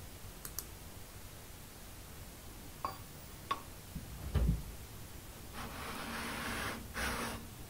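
Wooden jack plane set down with a few light clicks and one dull thump, then slid over 220-grit sandpaper glued to a flat tile. Near the end come two short sanding strokes of the wooden sole, a longer one and then a brief one, as the sole is being flattened.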